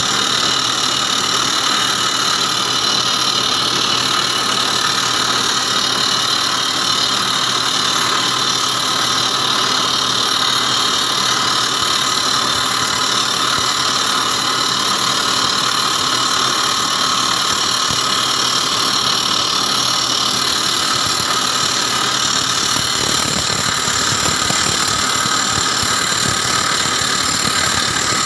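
Ranger 700 crawler rock drill rig drilling into rock: a loud, steady mechanical din from the rig's engine and drill.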